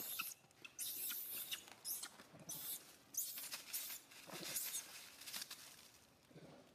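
Baby macaque screaming in distress, a run of short high-pitched squeals, as a bigger macaque pins it down and bites it. The cries fade near the end.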